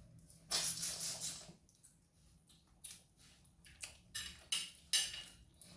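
Meal-table handling sounds: a scrape or rustle lasting about a second near the start, then several short clicks and crackles of cutlery, dishes and food being handled.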